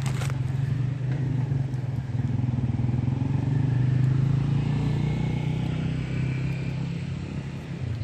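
A motor vehicle's engine running with a steady low hum. It grows louder to a peak about halfway through, then fades, as a vehicle passing by would.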